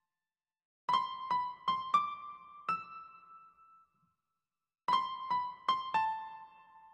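Background music: an electric piano plays a short phrase of five notes stepping upward, pauses about a second, then plays four notes that fall back down and ring out.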